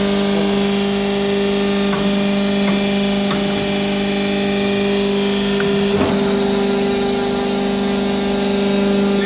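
Hydraulic power pack of an aluminium scrap baling press running with a steady hum, a few light clicks from the press, and a sharp knock about six seconds in, after which the hum shifts slightly in pitch.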